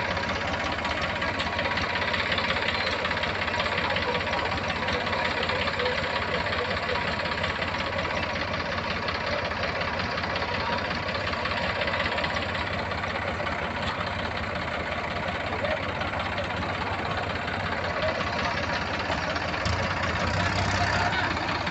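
New Holland 3230 tractor's three-cylinder diesel engine running steadily while the tractor works in deep mud on cage wheels.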